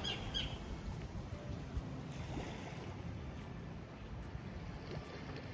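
Steady low wash of gentle surf and wind at the shoreline, with a few short bird chirps at the very start.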